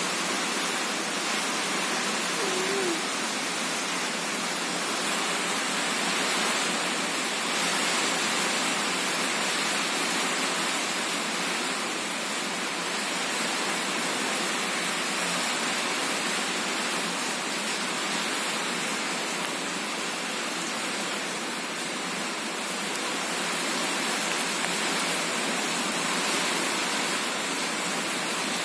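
A steady, even hiss of background noise that does not change, with no distinct events.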